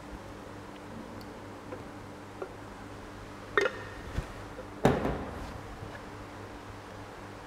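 A few light clicks, then two sharp knocks about three and a half and five seconds in, the second ringing briefly: a glass beaker knocked and set down on hard surfaces as it is handled. A steady low hum runs underneath.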